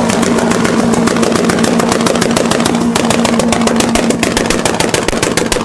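Honda Civic four-cylinder engine held at steady high revs while the exhaust fires a rapid, irregular string of loud pops and bangs.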